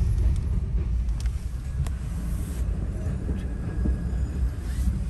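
Steady low rumble of a car heard from inside its cabin while moving slowly in traffic, with a couple of faint clicks about one and two seconds in.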